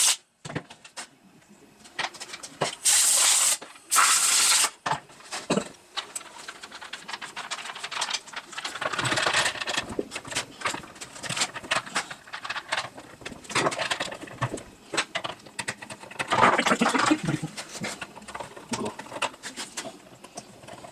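Irregular clicks, knocks and light clatter of parts and tools being handled during chainsaw reassembly, with two short bursts of hiss about three and four seconds in.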